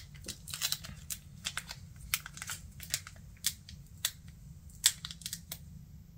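Foil wrapper of a Pokémon card booster pack crinkling and crackling in irregular sharp snaps as it is worked at and torn open; the pack is stubborn and hard to open.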